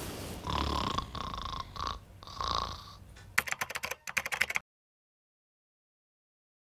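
Exaggerated snoring: several short rasping snores, then about a second of fast rattling clicks, cut off abruptly into dead silence a little past halfway.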